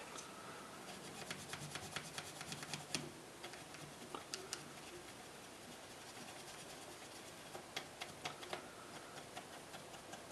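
Small nylon cleaning brush scrubbing the contact pins of a hard drive's circuit board: faint, quick scratchy ticks in clusters, busiest in the first three seconds and again near the end.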